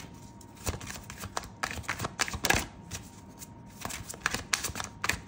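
Tarot cards being shuffled by hand: an irregular run of quick card snaps and flicks, thickest about halfway through.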